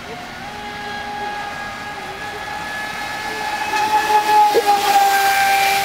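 Traxxas Spartan RC speed boat's brushless motor running at high speed on a 4S LiPo, a steady high-pitched whine that wavers slightly in pitch. About four seconds in it grows louder, with more hiss, as the boat passes close.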